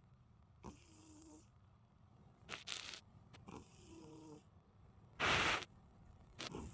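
A cat snoring softly in its sleep: a slow, wheezy breath with a low hum about every three seconds. Two short, louder bursts of noise come in between, the loudest about five seconds in.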